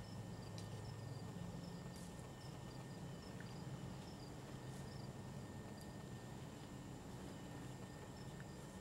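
Faint, regularly repeated high chirps of an insect, over a low steady hum, with a few scattered soft ticks.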